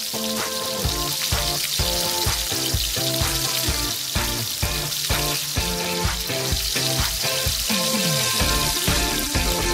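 Galunggong (mackerel scad) sizzling steadily in hot oil in a frying pan. Background music with a steady beat plays over it.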